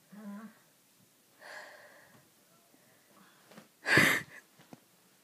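Breath sounds from a person lying in bed: a faint low murmur at the start, a soft breathy sigh, and a short, loud breath sound about four seconds in.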